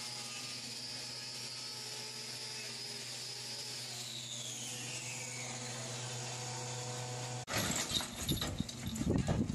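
Hand-held hoof grinder (an angle grinder with a trimming disc) running steadily on a cow's hoof, with a steady hum and a high whine that drops in pitch about four seconds in. Near the end the sound changes abruptly to louder, irregular knocking and rattling.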